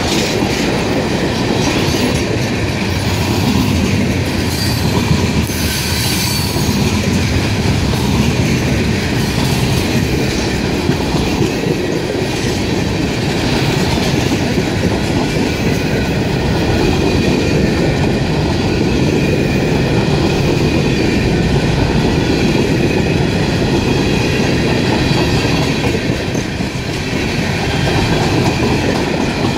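Freight train cars rolling past at speed: a steady rumble with wheels clacking over the rail joints and some wheel squeal.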